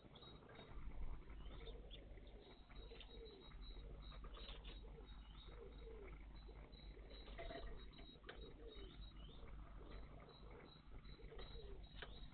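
Small garden birds calling around a bird bath: scattered short high chirps, with low repeated notes beneath them and a brief louder sound about a second in.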